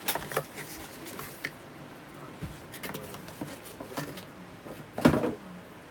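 Hands handling a subscription box's packaging and small cosmetic items: scattered clicks, taps and light rustling, with one louder knock about five seconds in.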